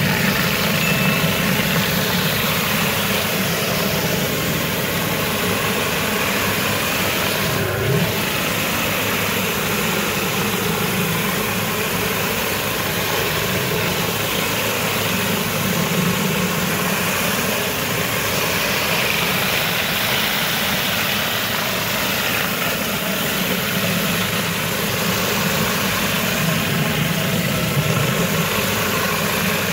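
Hot-water pressure washer running steadily, its rotary surface cleaner spraying near-boiling water onto the paver joints with a constant engine-and-spray noise. One brief knock comes about eight seconds in.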